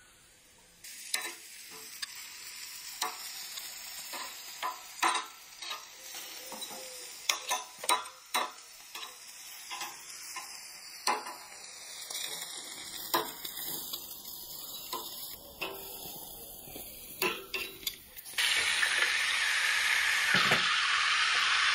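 Sausages sizzling on a charcoal grill, with frequent sharp clicks as metal tongs turn them on the grate. About 18 seconds in, this gives way suddenly to a much louder, steady sizzle of food frying in a cast-iron pan.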